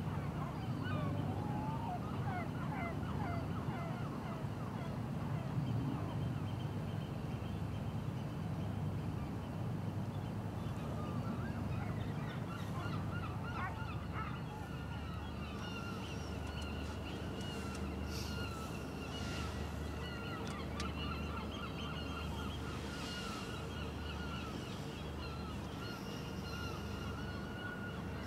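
Many birds calling in short honking cries, thickest in the first half. Underneath runs a steady low hum, and a steady high whine sets in about halfway.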